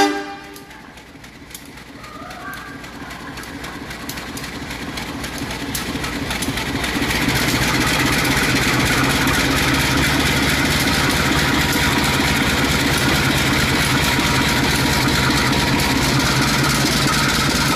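Motorised miniature train running along its plastic track: a small motor's whir with a dense rattle of wheels clicking over the rails. It grows louder over the first several seconds, then holds steady.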